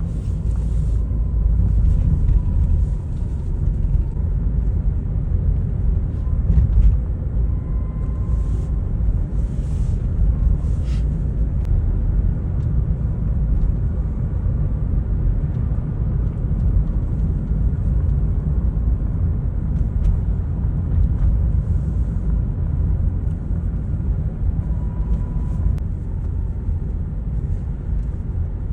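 Steady low rumble of outdoor city ambience, with a few faint brief hisses in the first ten seconds or so.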